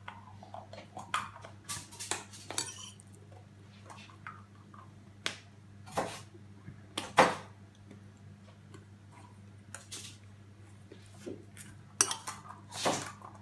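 Irregular sharp clicks and knocks of plastic surprise eggs and small toys being handled and opened, the loudest about seven and twelve seconds in.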